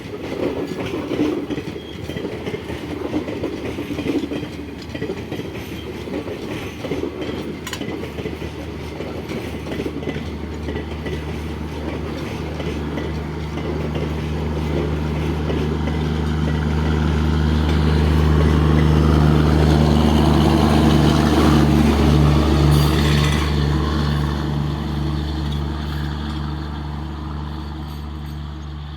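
Express train running through a station: wheels clattering over the rails, then a deep steady engine hum that builds to its loudest about two-thirds of the way in and then fades.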